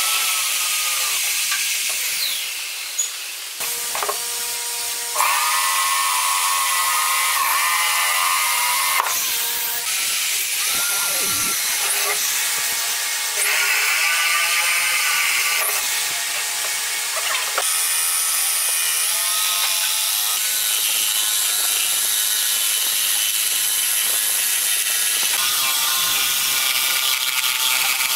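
Electric drill boring a series of holes into a wooden tabletop, its motor whine rising and falling in pitch as each hole is drilled, with a brief lull a few seconds in.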